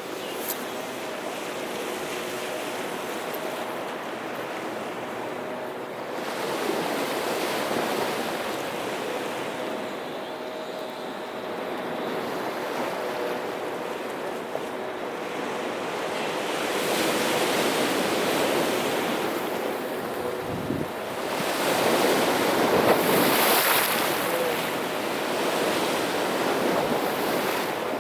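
Black Sea surf washing ashore in a continuous wash, with waves breaking louder about a quarter of the way in, again just past halfway, and strongest about four fifths of the way through. A faint steady hum sits underneath.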